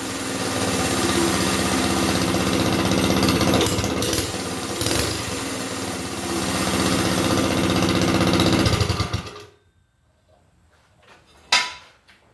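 Small gas engine of a 2025 Hoverhearts running loud through a JMCHstore aftermarket header exhaust pipe, swelling and easing unevenly, then shut off about nine seconds in and dying away fast. A single sharp knock comes near the end.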